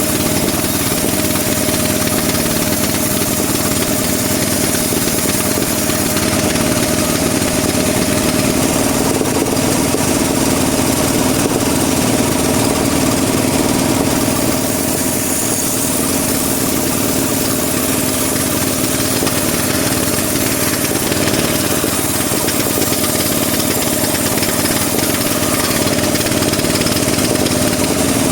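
Band sawmill running steadily: a constant mechanical drone with a steady whine over it, holding the same level throughout.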